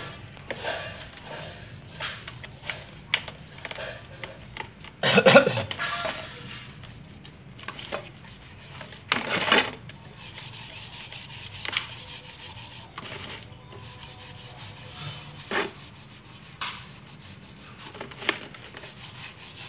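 Brass candlesticks being scrubbed wet with a metal scouring pad: rubbing and scraping strokes, about three a second in the second half, with scattered knocks of brass against brass. A brief louder sound comes about five seconds in.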